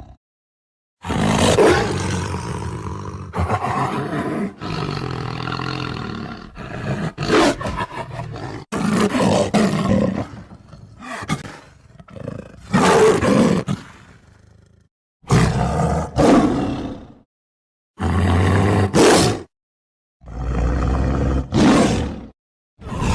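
Tiger roars and growls, one after another, each clip starting and cutting off abruptly with brief silent gaps between some of them.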